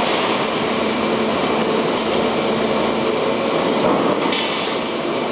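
Steady, loud machinery noise, a continuous mechanical hum and rush with faint steady tones, with a brief higher rasp about four seconds in.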